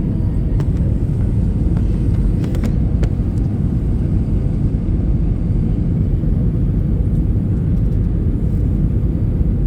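Steady low rumble of an airliner's engines and rushing air, heard from inside the passenger cabin, with a few faint clicks in the first few seconds.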